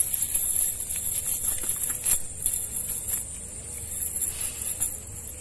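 Steel chain sinkers of a cast net clinking and jingling as fish are picked out of the net by hand, scattered sharp clinks over a steady high hiss.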